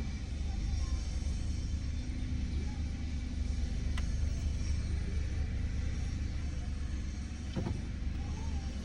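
Car heard from inside the cabin: a steady low rumble, with a single click about four seconds in and a brief knock near the end.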